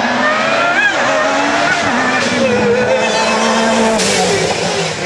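Lancia Delta S4's twin-charged (turbo plus supercharger) 1.8-litre four-cylinder engine run hard, its pitch climbing and then dropping several times as it changes gear.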